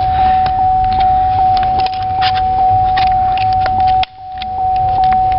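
Light metallic clicking and jingling of small parts as a small screwdriver works the pins out of a seatbelt retractor housing. The clicks come about two or three a second over a steady high electronic tone, which dips briefly about four seconds in.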